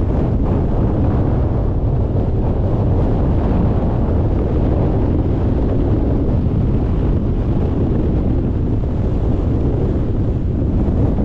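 Storm-force gale wind buffeting the microphone: a loud, steady low rumble of wind noise.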